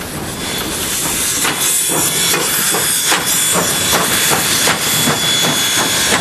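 Steam locomotive working, with loud hissing steam and regular exhaust beats about three a second; the hiss swells up over the first second.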